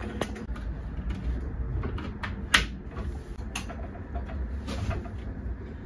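A few sharp clicks and knocks of hand tools working on an aluminium 80/20 extrusion frame and its cabinet hinge, the loudest about two and a half seconds in, over a low steady hum.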